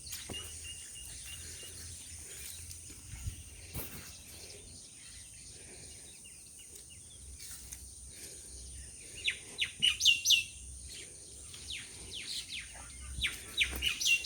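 Birds chirping in quick runs of short, high, downward-sweeping notes, about nine seconds in and again near the end, over a steady high-pitched insect drone.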